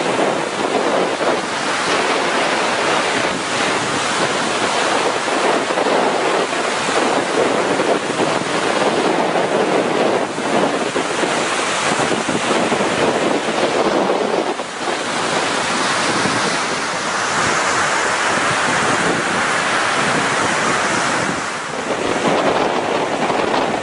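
Floodwater rushing steadily, a dense even noise, with wind buffeting the microphone.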